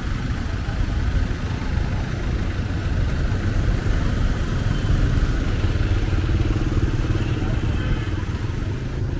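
Steady low rumble of motorbike and vehicle engines in a busy street, with faint background voices.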